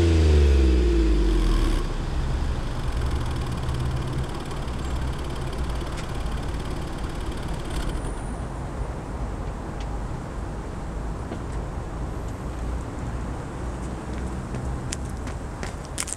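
Seat Ibiza 6L's 1.2 12V three-cylinder engine, warm, breathing through an aftermarket NAP middle silencer and L&W rear silencer. It holds a little above idle for about two seconds, then drops to a steady idle with a low exhaust drone.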